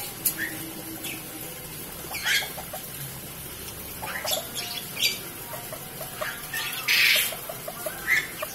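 Serama bantam rooster giving short, sharp squawks every second or two, with a quick run of low clucks in the middle; the loudest squawk comes about seven seconds in.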